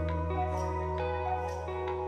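Background music: a soft instrumental track with plucked notes over a held bass, about two notes a second.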